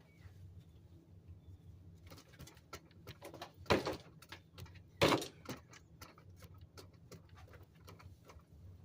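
Handling noise from a small bucket being moved among garden junk: scattered rustles and clicks, with two louder knocks about four and five seconds in. Beneath them runs a steady low drone, which the uploader attributes to a grocery store exhaust vent.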